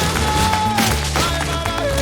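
Film score music, with long held melody notes over a repeating low bass line.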